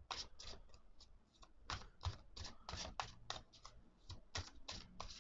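Faint overhand shuffle of a new Unfolding Path tarot deck: quick card-on-card swishes and flicks, about three or four a second, as packets of cards slide from one hand into the other.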